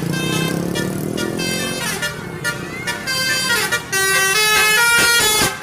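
Tour bus 'basuri' telolet horn, a multi-note musical air horn, playing a tune: held horn notes that step from pitch to pitch, with a falling slide about three and a half seconds in.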